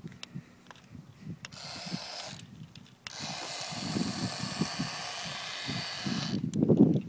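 RC M1A2 Abrams tank's electric drive motors and gearboxes whining as it runs on its extra-speed setting. The high whine comes in briefly about two seconds in, then holds from about three seconds until just after six. Irregular low rumbling knocks run underneath and swell to a louder rumble near the end.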